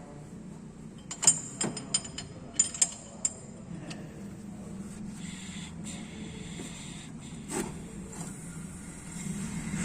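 A cluster of sharp metallic clicks and clanks, then one more near the end, from a ring spanner working on the crankshaft bolt as the engine is turned over by hand toward top dead centre of cylinder 4 for valve clearance adjustment. A steady low hum runs underneath.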